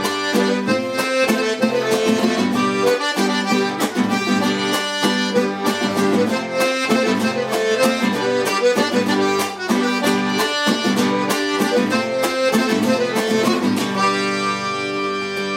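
Accordion playing a waltz tune with guitar accompaniment, the rhythm stopping about fourteen seconds in on a held final chord.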